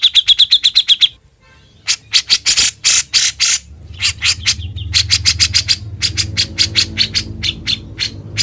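A songbird singing: a fast run of sharp repeated chirps, about eight a second, breaks off about a second in. After a short pause come runs of loud, harsh notes and rapid chips, with a low steady hum underneath in the second half.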